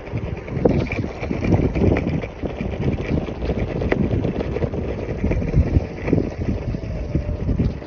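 Wind buffeting the microphone of a phone held by a rider on a moving scooter, with the low rumble of the scooter's wheels rolling over cracked asphalt and then brick paving.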